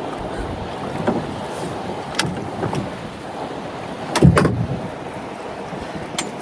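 Steady wind and river water noise around a fishing boat, with a few short sharp splashes; the loudest comes about four seconds in.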